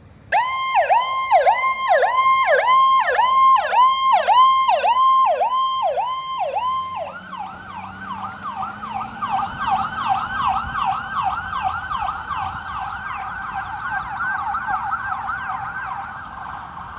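Ambulance's electronic siren sounding loudly in a yelp of about two and a half sweeps a second. About seven seconds in it switches to a faster, slightly higher sweep of about four a second.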